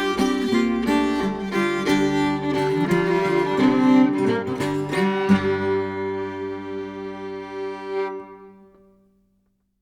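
Closing bars of a traditional English folk song played on fiddle and acoustic guitar: a run of notes, then a final chord struck about five seconds in and left ringing until it fades out about nine seconds in.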